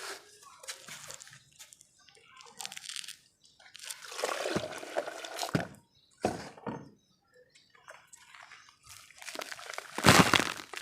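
Wet red dirt clumps crumbling and falling apart in several separate bursts, the loudest near the end.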